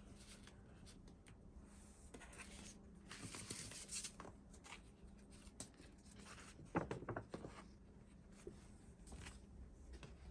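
Hands handling K-pop album packaging and its contents: soft rustling and scraping in bursts, busiest from about two to four seconds in, and a soft knock with brief handling noise about seven seconds in.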